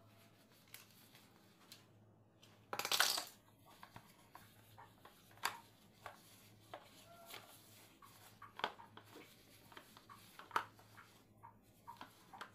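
A plastic dumpling press being wiped with a cloth and handled: cloth rustling with light plastic clicks and taps, and one louder rustle about three seconds in.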